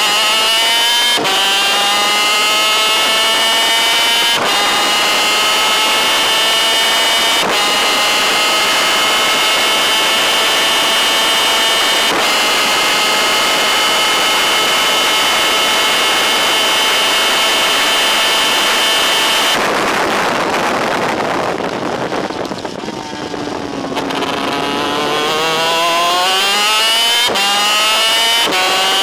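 On-board sound of a DEA 250cc two-stroke twin superkart engine at full throttle: revs climb through four quick upshifts, then hold high and steady. About two-thirds through, the engine note falls away as the throttle is lifted for a corner, then climbs again through two more upshifts near the end.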